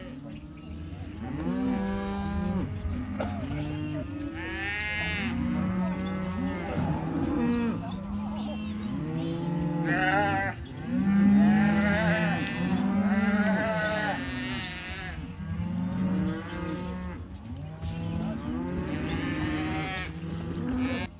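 Calves bawling, many overlapping calls following one another with barely a break.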